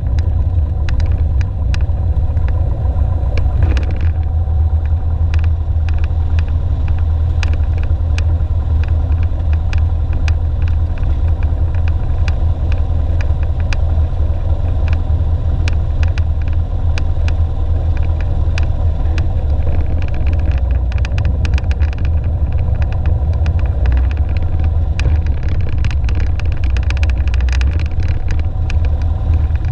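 Piper Warrior's four-cylinder Lycoming engine and propeller running steadily, heard inside the cabin as a deep, even drone, with many small clicks and rattles as the plane rolls on the ground.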